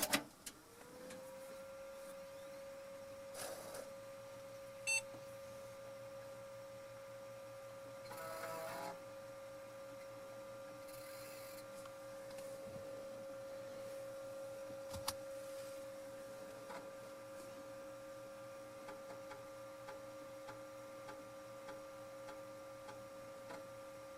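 Floppy disk drive running: a click, then a steady whine that rises to pitch within the first second and holds, broken by a few short buzzes and sharp ticks.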